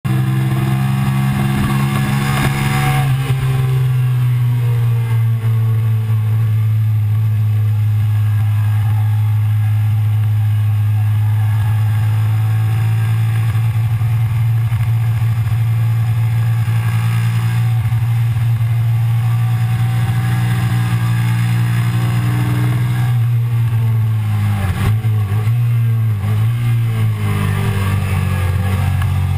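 Suzuki SV650's V-twin engine running hard at speed, heard from a camera mounted on the bike. The engine note changes pitch a few seconds in, then dips and wavers around twenty-four seconds in as the revs fall for gear changes, before climbing again near the end.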